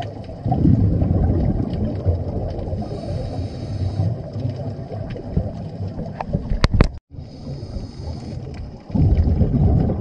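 Uneven low rumble of a boat's engine running on open water, mixed with wind buffeting the microphone; the sound cuts out for a moment about seven seconds in and comes back louder near the end.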